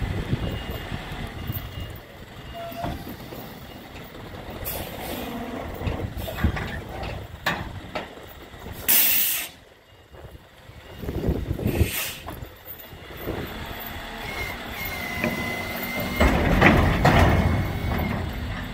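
Hook-lift truck's diesel engine running while its hook lift drags a steel roll-off container off a flatbed trailer, with several metal clanks. A loud burst of air hissing comes about nine seconds in, and a brief high squeal comes near the end.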